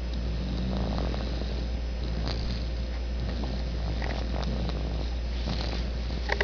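Snoring in sleep: a soft, rough breathing rasp that swells and fades, over a constant low hum, with a couple of sharp clicks right at the end.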